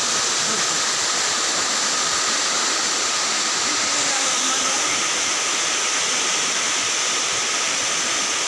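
Waterfall rushing steadily, a continuous roar of falling water.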